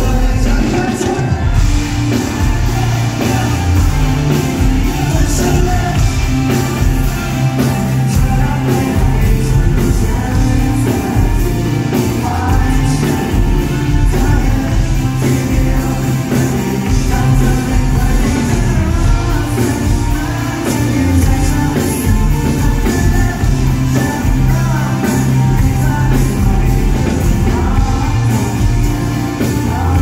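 Thai pop-rock band playing live in a large hall: a male lead vocal sung into a microphone over electric guitars, bass and a drum kit, with a steady full-band groove.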